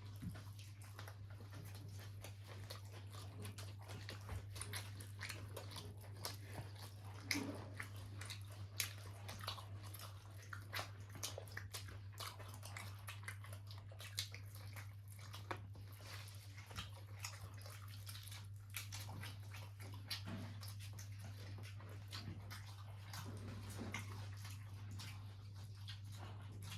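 People biting and chewing fried chicken, with scattered soft clicks and crunches over a steady low hum.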